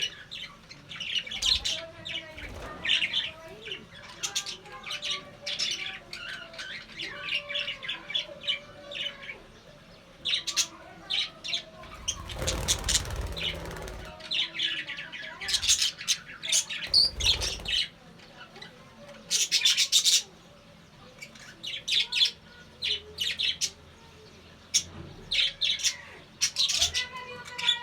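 Budgerigars chattering: rapid short chirps and squawks, on and off, with two louder noisy bursts about halfway through.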